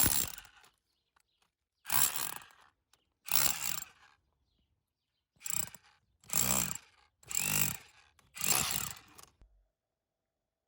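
Milwaukee M18 FUEL SDS-plus cordless rotary hammer run in short bursts: about seven trigger pulls of under a second each with brief pauses between, stopping about nine seconds in.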